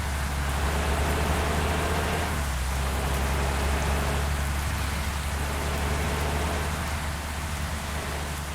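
Heavy rain falling steadily, over a constant low drone from the bus.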